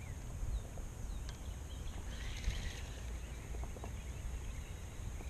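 Outdoor pondside ambience: birds giving short falling chirps, busiest a little after two seconds in, over a steady low rumble.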